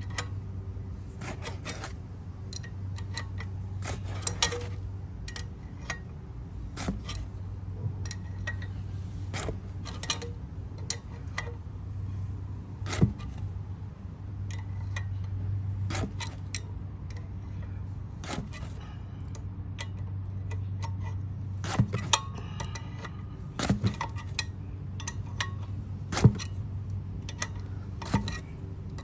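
Hand tools clicking, scraping and knocking on metal while a stuck pilot bearing is worked out of an LS7 engine's crankshaft: irregular sharp metallic clicks, a few louder knocks, over a steady low hum.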